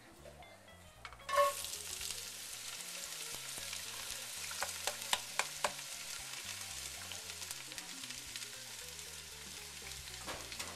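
Chopped onions, peppers and garlic dropped into hot olive oil in a pan, sizzling loudly from about a second in. A few sharp clicks and pops come through the sizzle around the middle.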